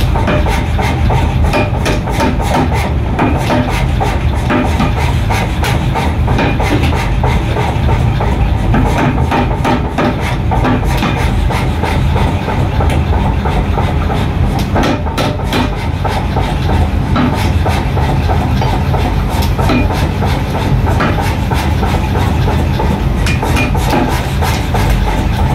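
Mechanical power hammer striking a red-hot steel billet in rapid repeated blows over the steady rumble of the running machine, forging a hammer head.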